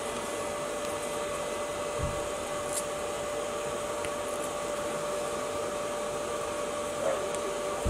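Steady mechanical hum with a constant tone, with a soft knock about two seconds in and another at the end.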